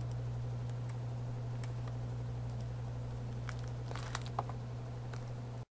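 Steady low electrical hum in the recording, with a few faint clicks and taps about four seconds in; the sound cuts off abruptly just before the end.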